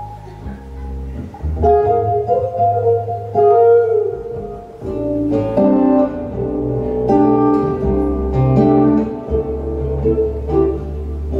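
Nylon-string classical guitar and upright double bass playing together: a plucked guitar melody over plucked bass notes, with a short sliding guitar phrase about two seconds in.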